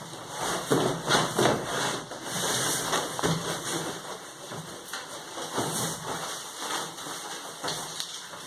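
A large cardboard carton rustling and scraping as it is pulled up off a washing machine, with its white packing sheet crinkling; an uneven run of small scrapes and crackles.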